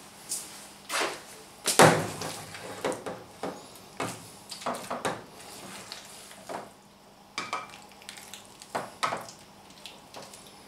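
Spoon knocking and scraping against a pot and a glass baking dish while macaroni and cheese is scooped into the dish: a string of irregular clinks and knocks, the loudest about two seconds in.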